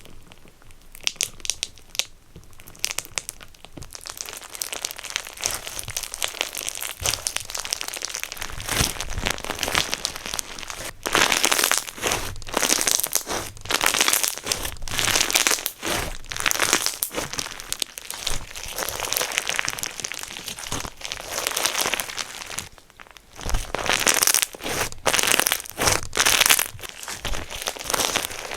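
Slime being squeezed and worked by hand, giving a dense, continuous crackling that grows louder about a third of the way in and drops off briefly near the end.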